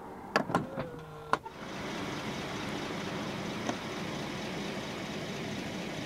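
Rolls-Royce Wraith's power boot lid latching shut: a few sharp clicks and a short motor whir in the first second and a half. Then a steady rushing noise.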